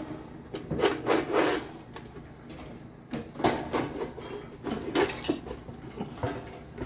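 Irregular knocks, clinks and scraping as the dryer's heating element and its metal housing parts are handled and worked loose.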